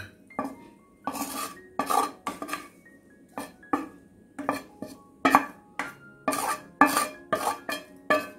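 Wooden spatula scraping crumbly scrambled chicken and egg out of a metal pan into a glass bowl, in repeated strokes about one or two a second.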